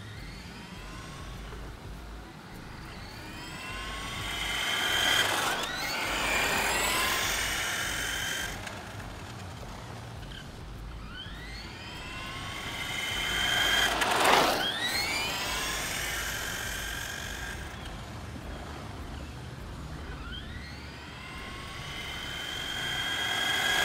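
Tamiya Stadium Thunder 1/10-scale RC truck on a test run, its 540 brushed motor and gearbox whining and tyres hissing on asphalt. It comes by close three times, roughly nine seconds apart, the whine climbing in pitch and growing louder on each approach.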